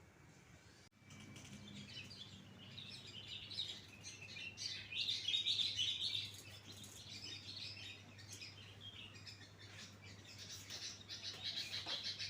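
Birds chirping: many short chirps overlap and begin abruptly about a second in, over a low steady hum.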